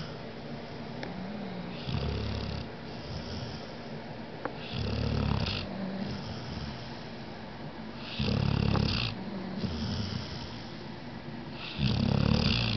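Snoring in a steady rhythm: four loud snores, one about every three and a half seconds, each lasting about a second, with softer breaths between them.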